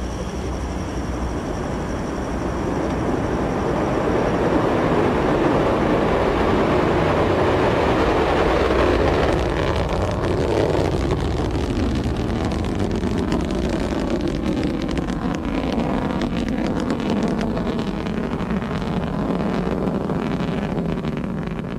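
Delta II 7925 rocket climbing away just after liftoff: the continuous noise of its main engine and strap-on solid rocket boosters. It swells over the first few seconds and then holds steady.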